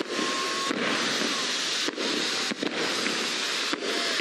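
Fireworks crackling and bursting in a dense, continuous barrage.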